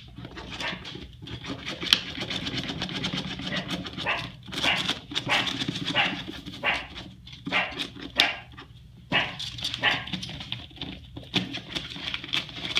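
Meerkats clawing and biting at newspaper stretched tight over a wooden digging box: a busy run of scratching, rustling and ripping paper, with short animal calls among it.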